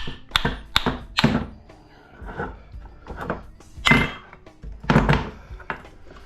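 Hammer blows and metal knocks on a PTAC fan motor as it is taken apart for its copper stator: three quick sharp strikes, softer knocks, then two heavier thunks near the end.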